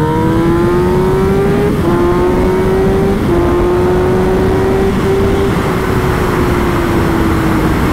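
Sport motorcycle engine pulling hard through the gears, its pitch climbing with short drops at each upshift about two and three seconds in, then easing off and falling near the end. The run shows off the bike's intake noise with the stock exhaust fitted, which the rider finds really loud.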